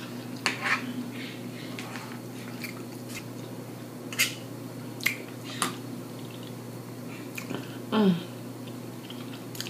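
Open-mouthed chewing: a handful of sharp, wet lip smacks and clicks spaced irregularly, with a short voiced sound falling in pitch about eight seconds in, over a steady low hum.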